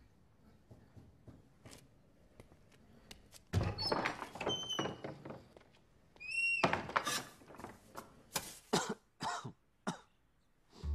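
A man coughing in several harsh fits, with a few short high squeaks in between.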